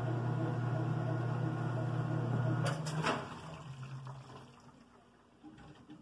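Kenmore top-load washing machine running with a steady motor hum. About two and a half seconds in come two sharp clicks as the lid is lifted, and the hum drops away, leaving it much quieter.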